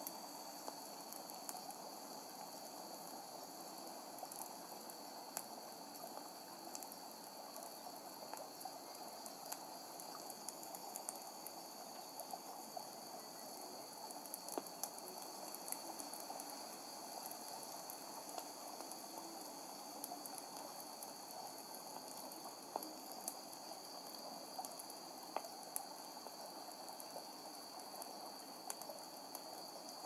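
Campfire crackling with scattered sharp pops, over a steady high chirring of crickets.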